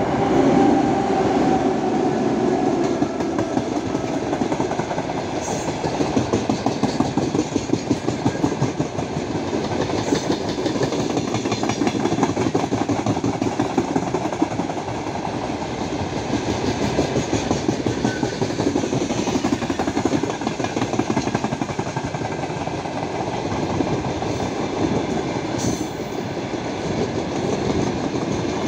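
A pair of ST44 (M62-type) diesel locomotives passing close, their engines loudest in the first couple of seconds. Then a long train of open coal wagons rolls by with a steady, rapid clatter of wheels over the rail joints.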